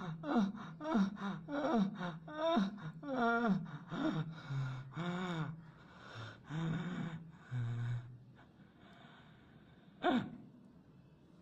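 A man gasping for breath: short voiced gasps falling in pitch, about two a second, giving way to longer drawn-out moans that fade, then one last sharp gasp near the end. These are the laboured dying breaths of a badly injured man.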